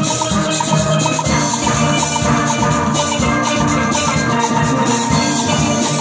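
A steel band playing a tune together on many chromed steel pans struck with mallets, over a steady drum beat.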